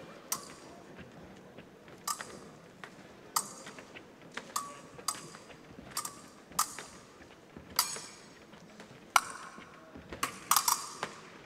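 Épée blades clashing: about a dozen sharp metallic clinks at uneven intervals, each with a brief ring, and a quick flurry of several near the end as one fencer lunges.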